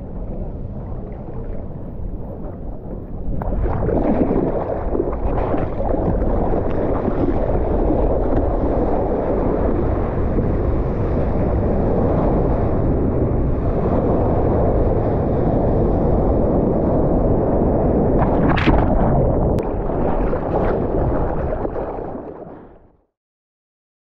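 Seawater rushing and splashing around a surfboard, heard from a camera mounted close to the water on the board, with wind buffeting the microphone. The rush grows louder about three and a half seconds in as the board moves through whitewater, with one sharp slap of water about eighteen and a half seconds in, then fades out near the end.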